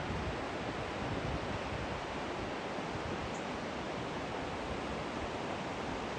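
Steady rushing of flowing stream water, an even hiss with no change in level.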